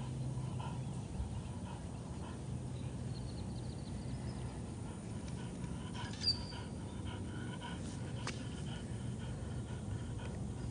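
French bulldog panting steadily, with a brief click about six seconds in.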